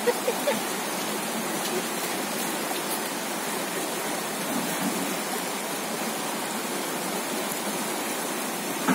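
Steady rush of a fast-flowing river running over rocks: an even hiss of moving water.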